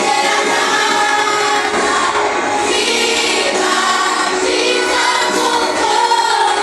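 A worship band and singers performing a Christian song, with several voices singing together over the instruments.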